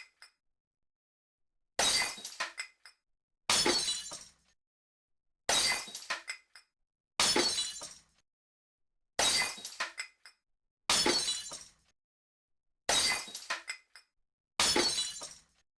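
Glass smashing, eight separate crashes about two seconds apart, each a sudden shatter that dies away in under a second, with dead silence between.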